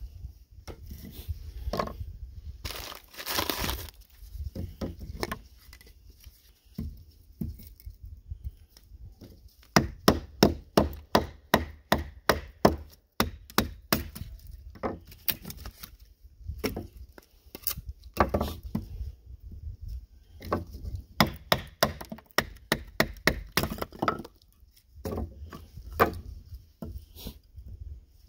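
A knife being driven through a stick of dry firewood to split kindling, giving repeated sharp wooden knocks against a wooden table in runs of about two to three blows a second, loudest about ten seconds in. A short noisy rustle comes about three seconds in.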